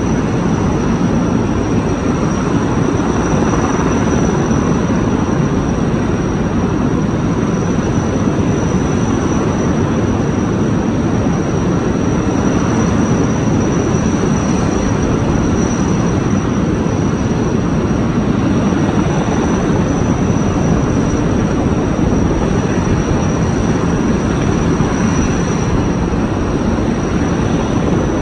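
Helicopter running steadily overhead: loud, unchanging rotor and engine noise with a thin high whine.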